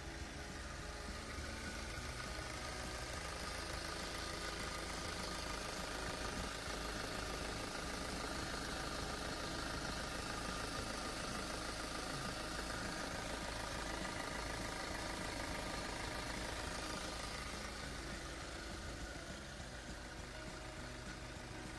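An MG6's 1.9-litre turbo diesel engine idling steadily, just after its oil and filter change.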